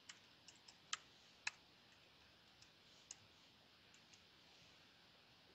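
Faint, irregular key clicks from a MacBook Pro keyboard: about ten soft keystrokes spread over the first four seconds as a short command is typed.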